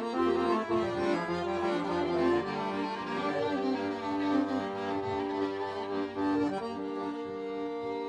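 Two violins and an accordion playing an instrumental improvisation, in long held bowed notes that shift in pitch every second or so.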